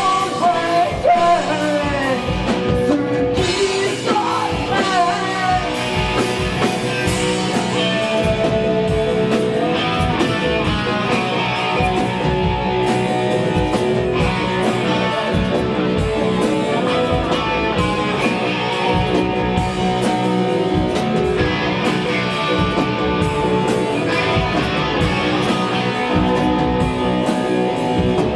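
Hard rock band playing live, with distorted electric guitars, bass and drums driving steadily under a singer's vocals.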